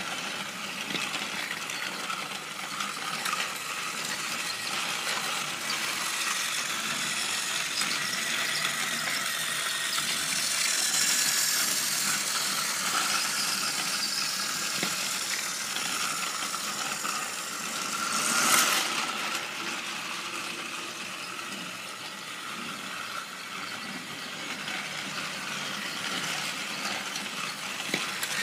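Battery-powered toy trains running on plastic track: the steady whir and rattle of their small motors and gears. About two-thirds of the way in comes one brief, louder clatter.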